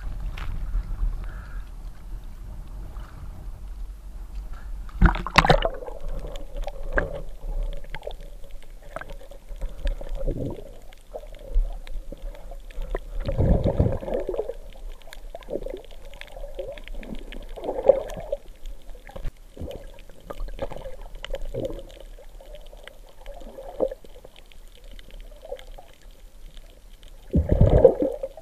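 Muffled underwater water noise: swishing and gurgling as the diver moves through the water, with a few louder low rushes, one about five seconds in, one about halfway and one near the end.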